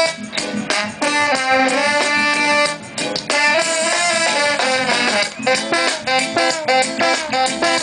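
Live reggae band playing: saxophone and trombone carrying a sustained melody over electric guitar chords and drums. The band drops out briefly twice.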